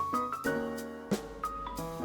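Background music: piano notes played one after another over a soft accompaniment.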